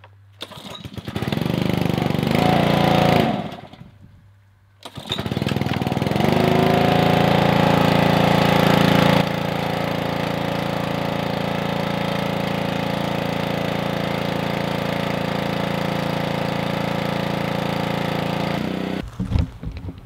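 Small gasoline engine of a pressure washer being started: it catches and runs for about three seconds, then dies. It starts again about five seconds in, rises in pitch, settles into a steady run, and cuts off near the end.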